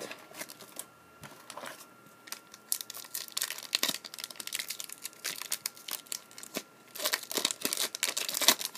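A trading card pack's wrapper being torn open and crinkled in the hands. The crackling is sparse for the first couple of seconds, then comes in dense bursts, heaviest in the last two seconds.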